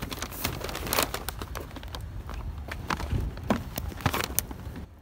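Handling noise from a handheld phone: scattered clicks and light knocks with rustling over a low rumble, going quieter just before the end.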